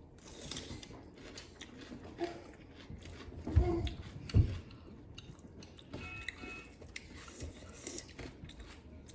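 Close-miked eating sounds: chewing with many small clicks, and two louder low thumps about three and a half and four and a half seconds in.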